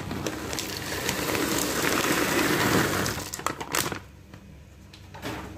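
Raw peanuts sizzling and crackling in hot cooking oil in a wok. Loud for about the first three seconds, then it drops to a quieter sizzle with a few sharp clicks.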